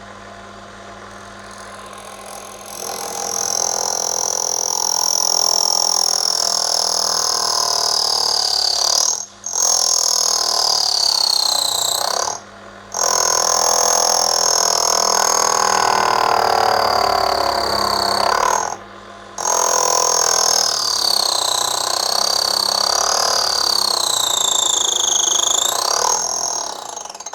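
Small light-duty lathe cutting the knurled rim off a brass disc. The motor runs quietly for a few seconds, then the tool bites with a harsh, loud screech: a high squealing tone that wavers and glides down and up. It breaks off briefly three times as the cut is eased. The lathe is struggling with the cut.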